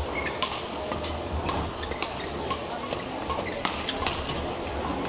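Badminton rally: sharp, irregular racket strikes on the shuttlecock and brief shoe squeaks on the court, over a steady rumble of hall noise.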